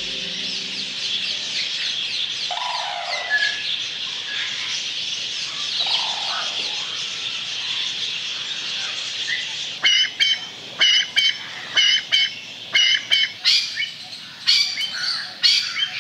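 Dawn chorus of many birds chirping and twittering together, with a couple of lower calls early on. From about ten seconds in, one bird gives a string of loud, sharp, repeated calls over the chorus.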